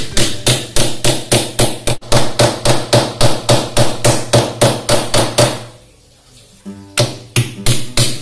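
Hammer driving nails into the cabinet frame with rapid, even blows, about four a second; the blows stop briefly about six seconds in and resume a second later.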